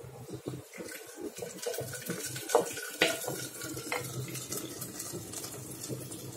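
Boiled mutton pieces and their liquid tipped off a plate into a clay pot of hot masala: wet splashing and plopping as the meat slides in, with a few sharp clinks near the middle.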